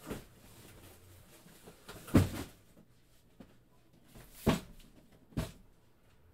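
Cardboard box being handled and set down on a cloth-covered table: four dull knocks, the loudest about two seconds in.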